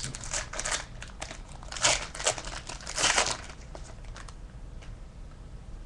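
Wrapper of a 2010-11 Playoff Contenders hockey card pack crinkling and tearing as the pack is opened, in a run of rustling bursts for the first three and a half seconds, then fainter rustling.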